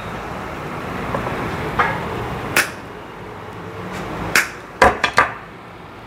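Pliers snipping the protruding wafers (levers) of a Mercedes door-lock cylinder: a handful of sharp metallic clicks, one about halfway through and a quick cluster of three near the end. The wafers sit too high in the cylinder after rekeying and are being cut down flush.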